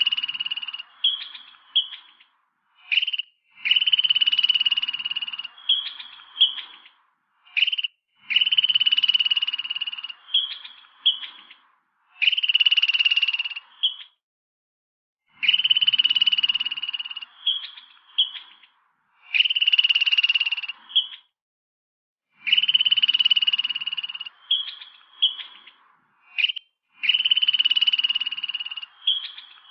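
Squirrel calling: a buzzy, fairly high-pitched call lasting about a second and a half, followed by a few short chirps, repeated every three to four seconds.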